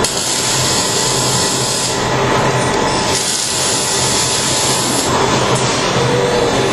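MIG welding arc crackling and sputtering steadily as the robot lays a bead, with a low hum underneath.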